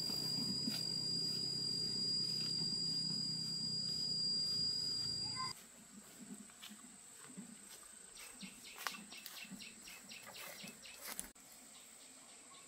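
Outdoor rural ambience: a steady high insect whine over a low rumble cuts off abruptly after about five seconds. Much quieter scattered insect clicks and rapid ticking chirps follow.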